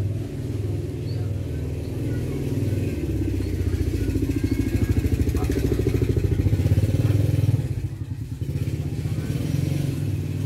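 A small engine running steadily, growing louder from about three seconds in and dipping briefly about eight seconds in.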